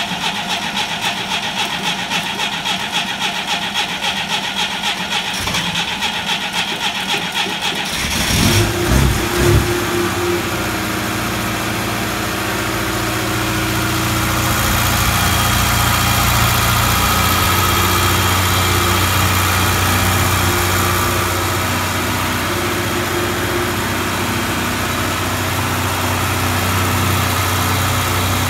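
Moskvitch's carburetted four-cylinder petrol engine being started: the starter cranks it in an even rhythm for about eight seconds, then the engine catches with a few uneven bursts and settles into steady running. It gets a little louder about 14 seconds in.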